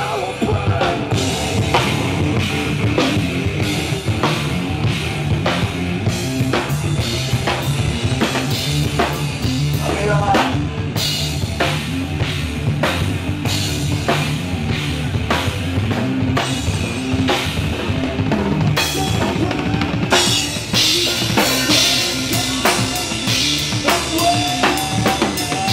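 Rock band playing live, an instrumental passage led by a pounding drum kit, with bass drum and snare strikes over electric guitar and bass.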